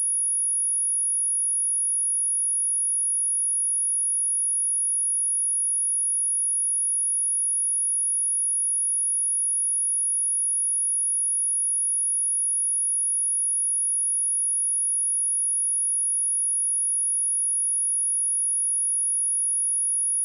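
A steady pure sine-wave test tone at 10372 Hz, a single high-pitched note held without change.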